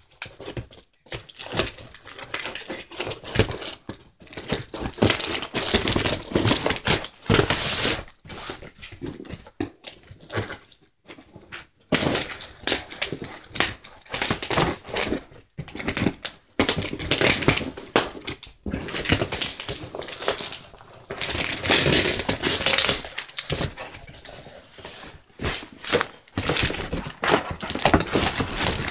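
Packaging being torn open and handled: irregular crinkling, rustling and ripping of a cardboard box, packing tape and plastic wrap, in uneven bursts with short pauses.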